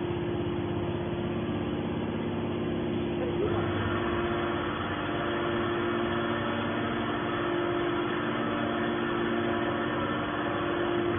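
Hydraulic scrap-metal baler running with a steady hum, joined by a higher, hissing layer of machine noise about three and a half seconds in.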